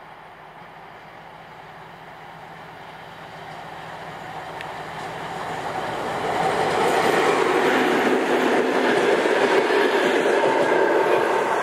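M62 diesel locomotive's two-stroke V12 engine growing louder as it approaches and passes hauling passenger coaches, with the clatter of wheels on the rails. It is loudest from about seven seconds in and begins to fade just after the end.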